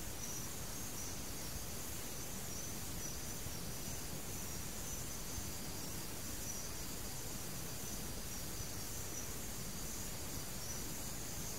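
Steady background hiss and low rumble of an old sermon recording between spoken phrases, with a faint, thin high-pitched whine that wavers slightly throughout.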